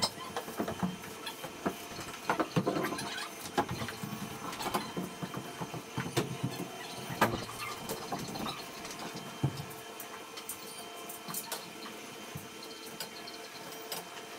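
Scattered light knocks and clicks, irregular and unhurried, from hand work on a steel tubular wall frame, with footsteps on a concrete floor; no power tool is running.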